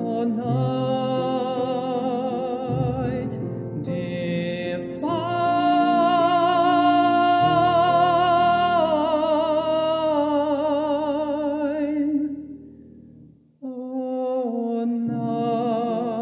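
A man singing a solo with a strong vibrato over low, sustained instrumental accompaniment. His loudest long-held notes come in the middle, and he breaks off briefly near the end before carrying on.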